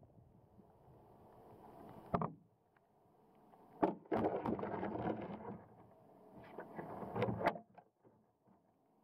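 Water rushing and sloshing round an underwater camera housing on a moving bait boat, heard muffled through the housing. The noise comes in swells, with several sharp knocks, the loudest about two seconds in and again around four seconds.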